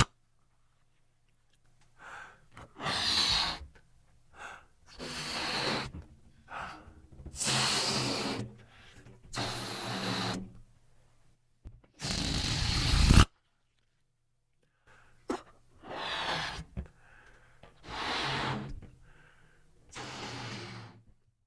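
Rubber balloon being blown up by mouth and let out: a series of short breathy puffs of air with pauses between them, some with a slight rubbery squeak. The loudest is a longer rush of air about twelve seconds in that stops abruptly.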